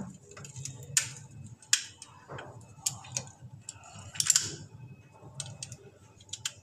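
Irregular sharp clicks and taps, roughly one a second, the loudest a little past the middle, from plumbing fittings being handled and worked by hand, over a faint low hum.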